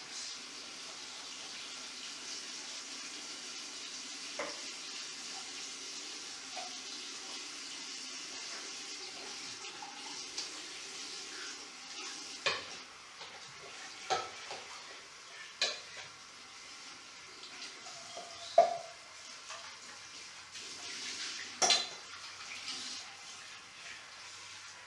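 Tap water running into a ceramic sink while the metal fuel tank of a primus stove is scrubbed with a sponge. In the second half the tank knocks against the sink about five times, the loudest knock about 19 seconds in.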